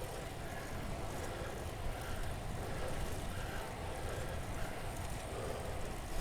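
Wind rushing over the microphone and riding noise from a bicycle ridden hard at speed, a steady low rumble, with soft swells that fit the rider's hard breathing.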